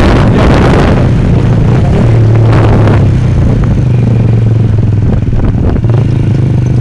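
Motorcycle engines running low and steady as the bikes slow down. Wind rushes over the microphone in the first second and again briefly about halfway, then dies away.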